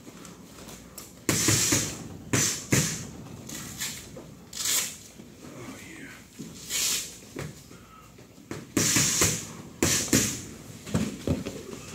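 Bodies grappling on training mats: irregular scuffles, shuffles and thuds in bursts, about a dozen in all, the loudest ones a little after the start and near the middle.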